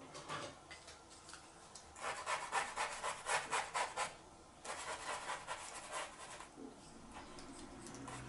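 Flat brush scrubbing pastel into pastel mat paper to blend it, in quick rasping strokes, several a second. The strokes come in two spells with a short break in the middle, fainter at the start and near the end.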